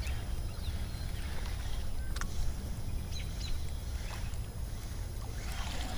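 Ambience on a fishing boat on the water: a low steady rumble with a few sharp clicks and brief bird chirps.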